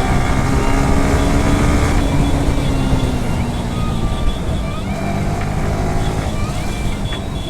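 Motorcycle riding through traffic: the engine runs steadily under a dense low wind rush. The engine note sinks slightly in pitch over the first few seconds.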